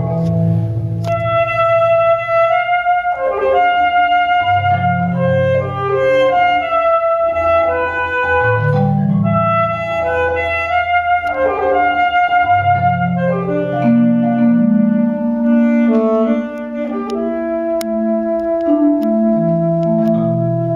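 Alto saxophone playing a melody of long held notes, accompanied by a marimba sounding low sustained chords.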